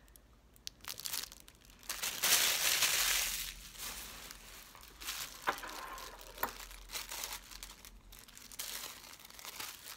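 Plastic packaging crinkling and rustling as it is handled. It is loudest for a second or so about two seconds in, with a couple of sharp ticks in the middle.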